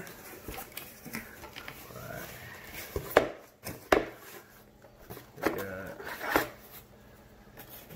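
A cardboard box being opened and its packaging handled: cardboard scraping and sliding, with sharp knocks about three and four seconds in.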